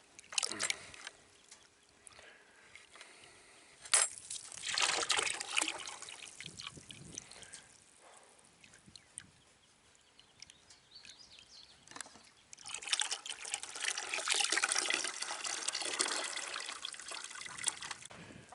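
Water pouring and trickling into a container. It comes in two spells, the first about four seconds in and the longer one from about twelve seconds to near the end, with a sharp knock at the start of the first.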